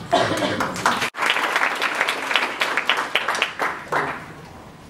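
Audience applauding, starting loud and dying away near the end, with a brief sharp dropout about a second in.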